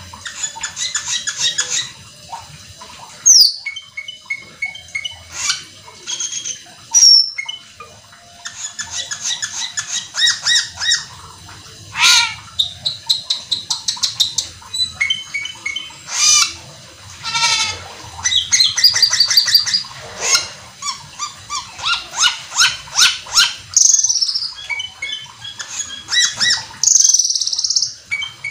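Asian glossy starling (cucak keling) singing a long, fast, varied song: strings of sharp chirps, sweeping whistles and rapid trills of many notes a second, with a few piercing loud notes along the way. It is in full song, packed with fill-in phrases.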